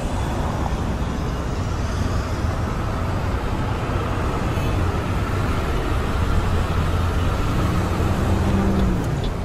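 Steady city traffic noise, a continuous rumble of road vehicles without distinct events, fading out at the very end.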